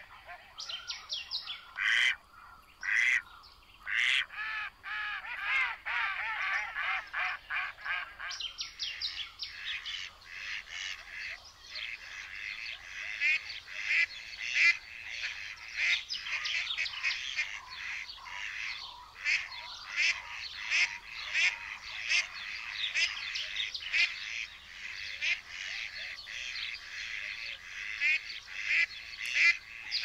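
A dense chorus of rapid, repeated animal calls from a spring reed bed. In the first seconds there are lower, arching calls and a few sharp, loud ones. From about eight seconds in, a denser, higher-pitched chorus takes over and carries on.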